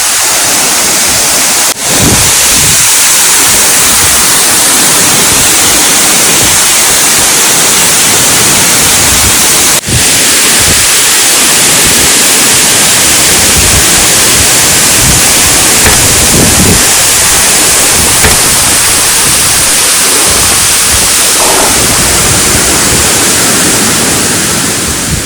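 Small waterfall close by, its falling water making a loud, steady hiss, with two brief dropouts about two and ten seconds in.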